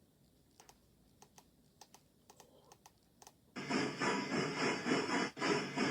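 Steam locomotive sound effect: a loud rush of steam that begins about halfway through and pulses rhythmically, dipping briefly once. Faint scattered clicks come before it.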